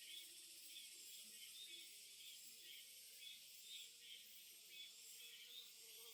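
Faint countryside ambience: a steady high hiss with soft chirps repeating two or three times a second.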